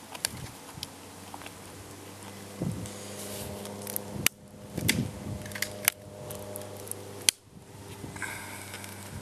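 Fingertip working at the metal ring-pull of a flat tin of fish, giving a scatter of sharp metallic clicks, the loudest about four, six and seven seconds in.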